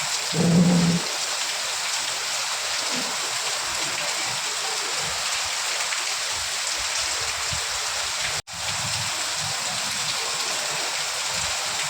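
Steady heavy rain, a dense even hiss of falling water. About half a second in there is a brief low thump, and the sound cuts out for an instant about eight and a half seconds in.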